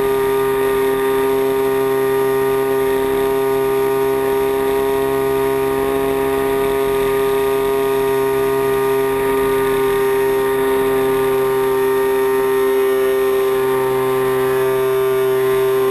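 The 40cc CRRC gas engine of a giant-scale RC airplane running in flight at a steady pitch. It is heard close up from a camera mounted on the airframe beside the engine.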